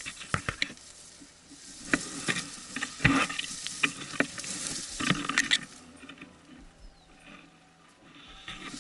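Irregular scuffs, clicks and rustling of a person moving on foot, in uneven clusters with short quiet gaps between.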